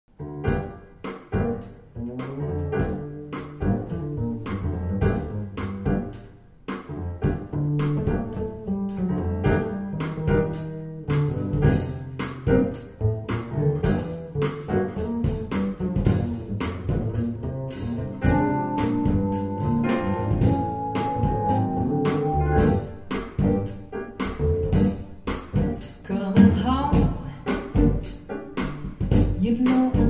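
Recorded music played back through a pair of KEF LS50 bookshelf speakers and picked up by a microphone in the listening room.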